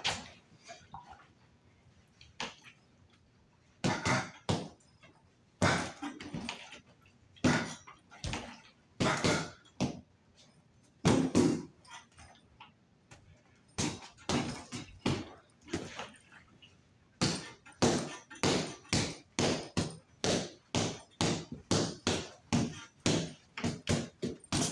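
Light punches landing on a free-standing punching bag on a spring base. Scattered single blows at first, then a steady run of about two punches a second over the last third.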